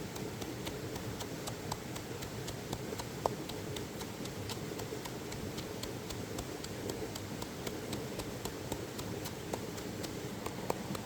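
Light crackling pops from the cooking, sharp and irregular, several a second, over the steady rush of flowing stream water.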